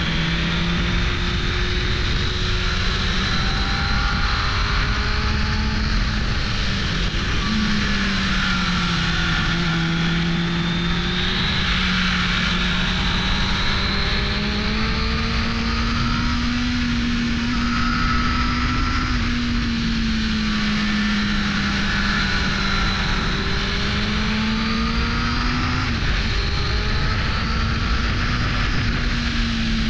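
1998 Suzuki GSX-R 600 SRAD's 599 cc inline-four engine running under way, its pitch rising and falling slowly with the throttle, with a short dip and recovery near the end. A steady rush of wind and road noise lies beneath it.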